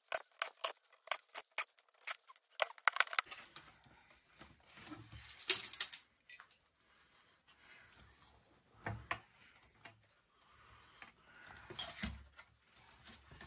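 Sharp metallic clicks and rattles of small screws and metal parts during hand disassembly of a power supply, close together for the first three seconds. After that come scattered knocks and scrapes of the sheet-metal housing being handled, with two dull thumps, about nine and twelve seconds in.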